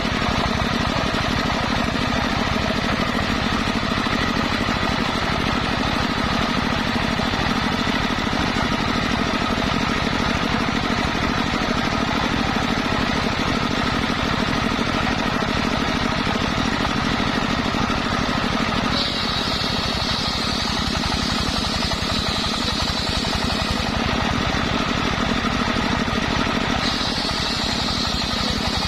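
Engine-driven circular saw machine running steadily with a fast, rattling engine beat. About two-thirds through, a higher whine comes in for several seconds and returns near the end as the blade saws through waru wood.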